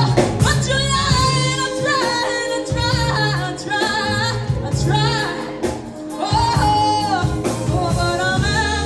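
A woman singing lead over backing vocalists and a band with bass guitar and drums, performing live. Her held notes waver with vibrato.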